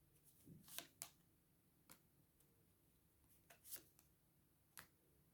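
Faint handling of tarot cards, with a few soft flicks and taps scattered through near silence.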